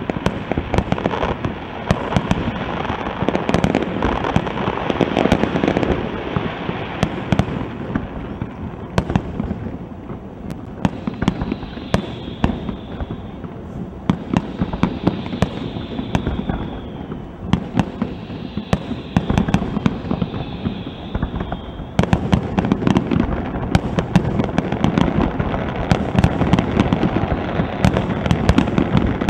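Aerial fireworks display: shells bursting in a rapid mix of bangs and crackling. The barrage thins out in the middle, where a few high whistling tones come through, then turns dense and loud again for the last third.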